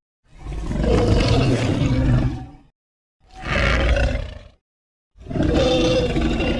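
Anguirus kaiju roar sound effects: three roars with brief silences between them, the middle one shorter.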